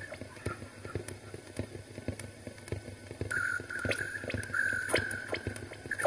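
Rapid, irregular clicking, with a thin, high, steady tone joining in about halfway through.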